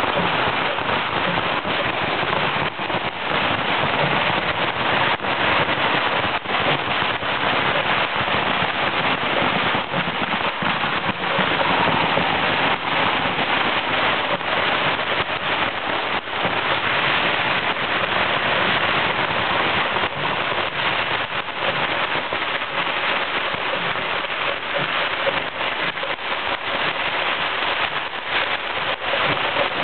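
Firecrackers going off in a dense, unbroken stream of crackling and popping, with many sharper bangs standing out.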